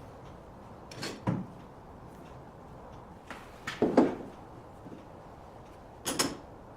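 Three short bursts of knocking and clattering, as of hard objects being handled and set down: about a second in, a louder one around four seconds, and another near the end.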